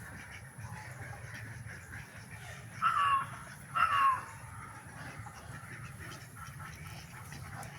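Two short, loud squawks from a free-range country chicken about a second apart, each falling in pitch, over steady background noise.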